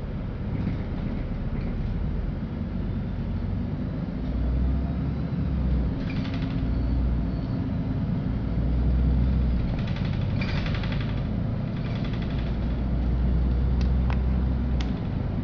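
Inside a LiAZ-5292 low-floor city bus on the move: a low engine and drivetrain rumble that swells and eases with the driving, over road noise, with a few sharp clicks and rattles near the end.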